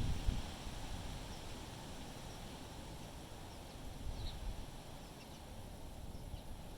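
Wind buffeting the microphone as a low rumble, strongest at the start and easing off, with a few faint, short, high bird chirps scattered through.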